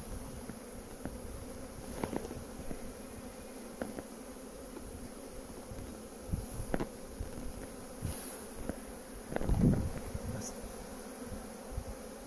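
Honeybees humming steadily around an open hive, with scattered clicks and knocks as a metal hive tool levers the wooden frames apart, and a louder thump a little before ten seconds in.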